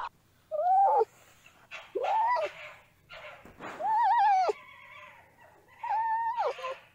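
A canine whining: four separate whimpering calls, each rising and then falling in pitch, spaced about one and a half to two seconds apart.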